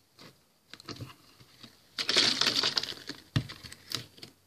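Handling noise from a rubber balloon being held and worked onto the neck of a plastic water bottle: scattered small clicks, a second of dense rubbing and crackling about two seconds in, and a sharp knock a little later.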